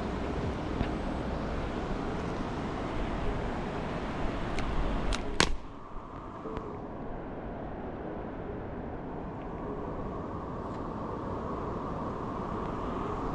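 Mountain stream water rushing steadily, with a few sharp clicks about four to five seconds in, after which the sound turns duller and muffled.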